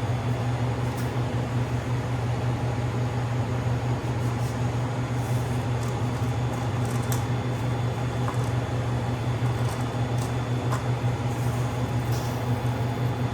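Steady mechanical hum of a running motor or fan, unchanging throughout, with a few faint ticks.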